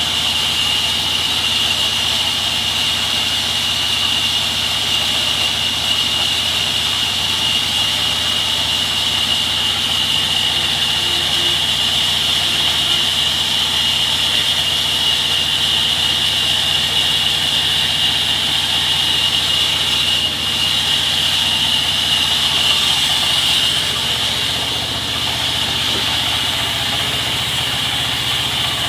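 Sawmill machinery running steadily, with a constant low engine hum under a loud, high-pitched hiss.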